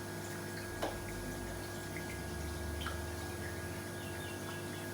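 Faint water drips and small trickles as aquarium water is added to a fish bag for acclimation, over a steady low hum.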